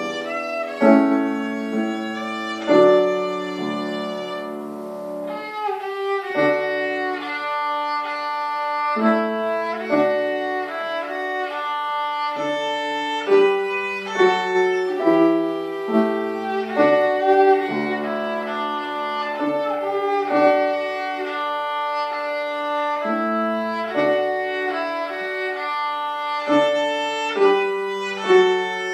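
Violin played with the bow: a continuous melody of held and moving notes, with piano accompaniment underneath.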